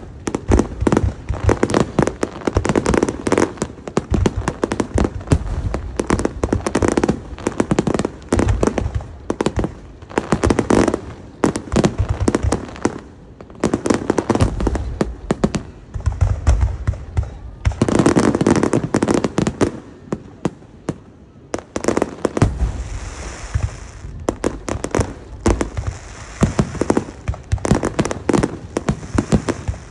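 Fireworks display: rapid volleys of aerial shells bursting, sharp bangs and deep booms one after another. After a short lull about two-thirds of the way through, a hissing crackle runs over the booms for several seconds.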